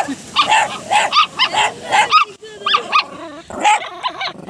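Two small dogs, a Miniature Pinscher and a small shaggy dog, barking at each other in a quick run of sharp, high barks, about three a second.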